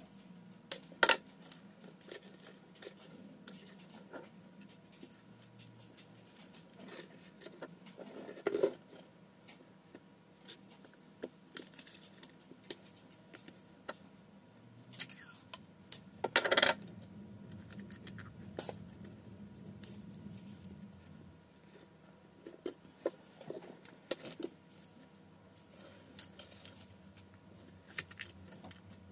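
Small clicks, taps and clatters of tools and small phone parts being handled on a silicone repair mat while a Samsung Galaxy A12 is taken apart, with a few louder knocks spread through it, over a faint steady low hum.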